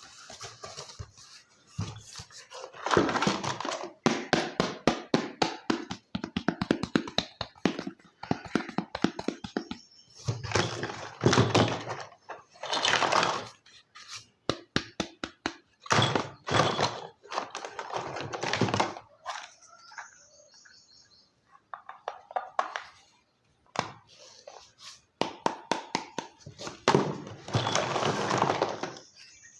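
Small plastic toy kitchen pieces being handled: a run of clicks, taps and light knocks, with bursts of rustling between them.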